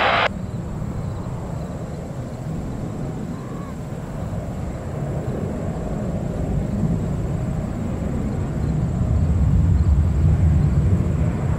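Jet airliner engine rumble, building gradually and loudest about nine to eleven seconds in.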